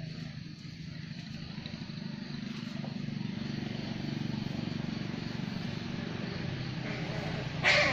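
An engine running steadily with a low hum that slowly grows louder, and one short, loud, sharp sound near the end.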